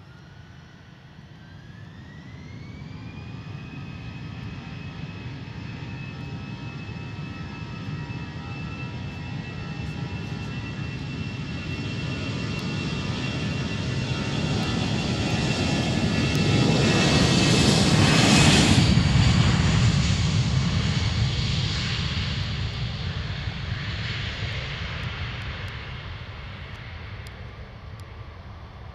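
Airbus A320-family jet on its take-off roll. The engines' whine rises in pitch over the first few seconds as they spool up to take-off power, then holds steady while the jet noise grows louder. It is loudest as the aircraft passes, about two-thirds of the way through, then fades as it rotates and lifts off.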